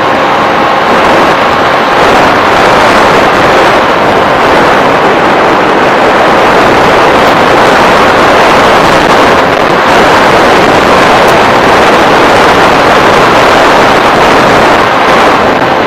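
Loud, steady rushing noise of an FPV model aircraft in flight, picked up by its onboard camera microphone: airflow and propeller noise, with a faint motor whine in the first two seconds.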